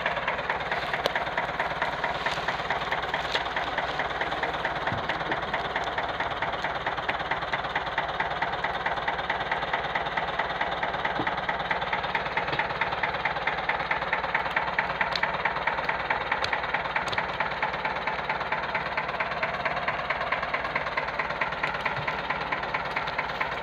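Ford farm tractor engine running steadily under load, with a fast, even knocking beat, as it tows a loaded trailer.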